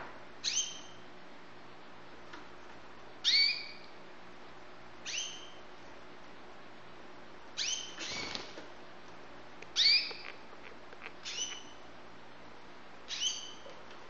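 White canary giving short call notes, about seven in all, each a quick falling chirp, one to two and a half seconds apart. A brief rustle comes about halfway through.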